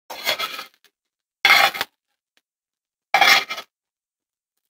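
Metal fork scraping chopped onion out of a glass bowl and against a frying pan, in three short scrapes about a second and a half apart.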